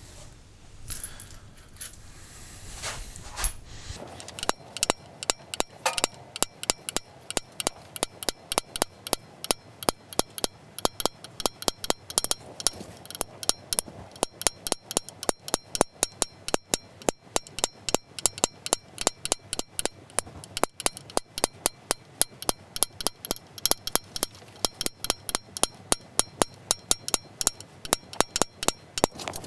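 Small hammer tapping a steel stamping punch into a wooden bowl, sharp even taps several a second in sped-up footage, with a slight metallic ring. The taps are sparse for the first few seconds, then run on rapidly.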